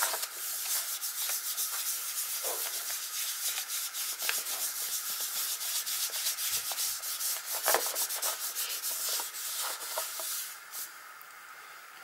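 A damp wipe rubbed back and forth over a gessoed paper journal page, spreading acrylic paint in quick scratchy strokes. The rubbing dies away about ten and a half seconds in.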